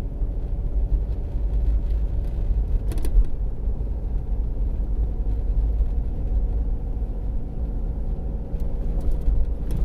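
Two-wheel-drive van driving on a snow-covered road, heard from inside the cab: a steady low rumble of engine and tyres with a faint hum, and one brief click about three seconds in.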